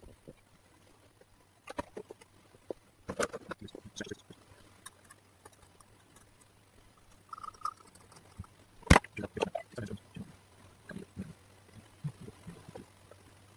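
Scattered clicks, taps and knocks from a small CRT TV's chassis and circuit board being handled and turned over, with one sharp knock about two-thirds of the way through. A faint low hum sits underneath.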